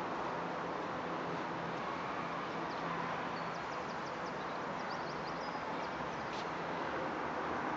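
Steady outdoor background noise, like distant traffic, with a bird giving a quick run of high chirps in the middle.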